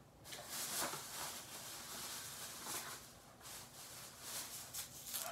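Rustling and light handling noises, soft scrapes and clicks, of someone rummaging through packages and shopping.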